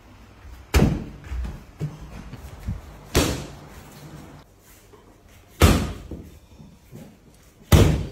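Muay Chaiya kicks landing with loud slapping thuds, four strikes roughly two to two and a half seconds apart, with a few fainter knocks between them.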